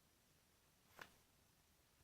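A pet coughing once: a single short, sharp, breathy cough about a second in.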